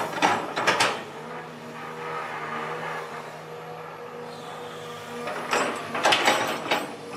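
Long-reach excavator's diesel engine running steadily, with two loud bursts of clattering knocks, one near the start and one about five and a half seconds in.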